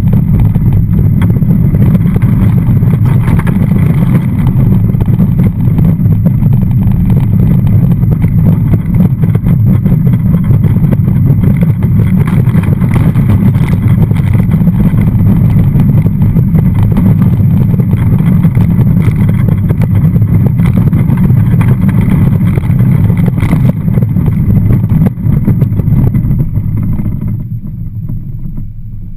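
Roller coaster train running on steel track: a loud, rough rumble of wheels on the rails mixed with wind buffeting the ride-mounted camera microphone. Near the end the rumble drops off as the train slows onto the straight run back toward the station.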